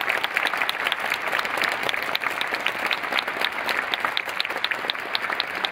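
Stadium crowd applauding: steady clapping from many hands, with no cheering voices.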